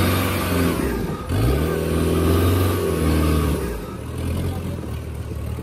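Off-road 4x4 vehicle's engine revving hard; its pitch drops about a second in, then climbs sharply and holds before the sound fades over the last two seconds.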